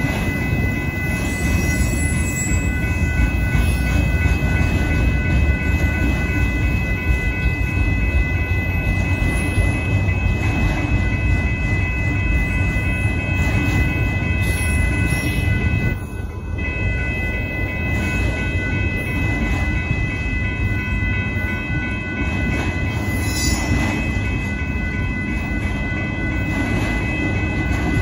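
Union Pacific auto-rack freight train rolling slowly past the crossing: a steady low rumble of wheels on rail, with the crossing bell ringing on one steady tone throughout.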